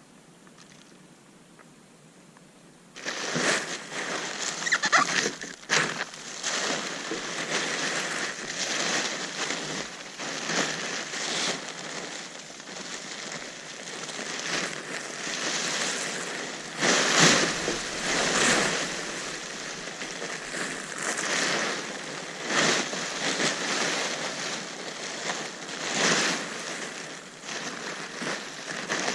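Plastic tarp rustling and crinkling as it is handled and pulled over a roof. It starts suddenly about three seconds in, with irregular sharp crackles.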